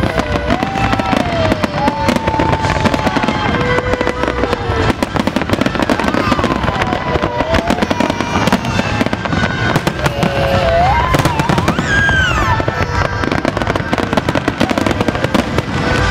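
Large fireworks display: a dense, continuous barrage of bangs and crackling shells.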